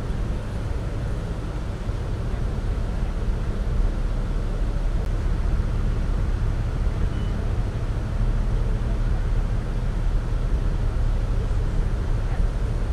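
Steady low drone of a tour boat's engine heard from on board, with the rush of water and air over it.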